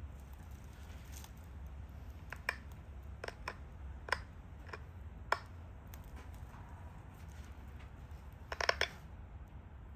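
Pressure flaking a stone Dalton point: flakes snap off the edge in sharp, separate clicks, about six spread through the middle, then a quick cluster of clicks near the end. A steady low hum runs underneath.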